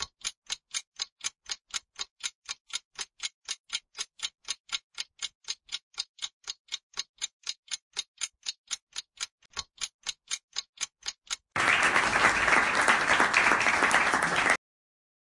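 Countdown timer sound effect: a clock ticking evenly, about four ticks a second, for roughly eleven seconds, then a burst of applause lasting about three seconds as the answer is revealed.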